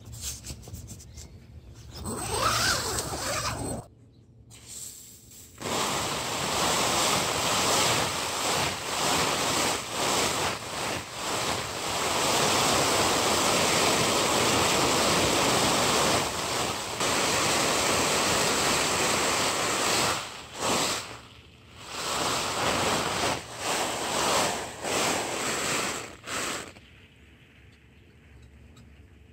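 Garden hose spray hissing and pattering on the fabric of an ultralight homemade tent, heard from inside: a water test simulating hard rain. It comes in briefly about two seconds in, runs steadily from about six seconds with a few short breaks as the spray moves, and stops near the end.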